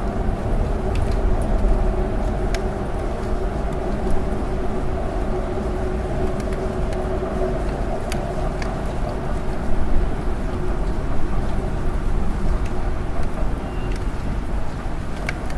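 Steady low rumble of city road traffic heard through an apartment window in the rain, with scattered light ticks of raindrops.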